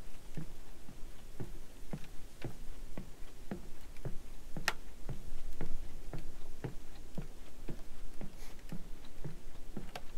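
Footsteps on the planks of a wooden boardwalk, an even walking pace of about two steps a second, with one sharper click about halfway through.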